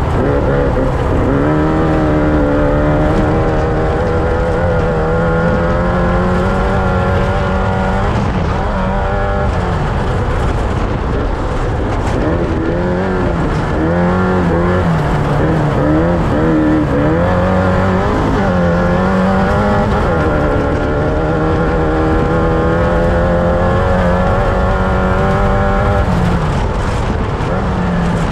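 Off-road race vehicle's engine running hard, its pitch rising and falling repeatedly as the throttle opens and lifts, with quicker dips and surges in the middle.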